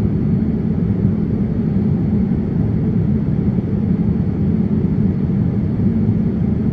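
Boeing 787-9 airliner cabin noise in cruise: a steady low rumble of engine and airflow noise heard from inside the cabin at a window seat.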